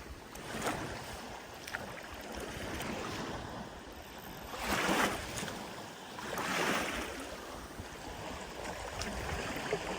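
Lake water washing and splashing in the shallows, with two louder splashy swells about five and seven seconds in.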